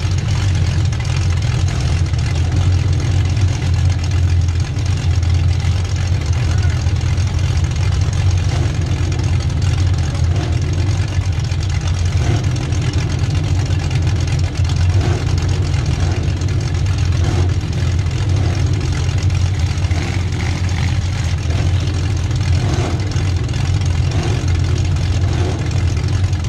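Demolition derby car's V8 engine idling steadily with a loud, even low rumble through open exhaust stacks coming up through the hood, heard from inside the stripped cab.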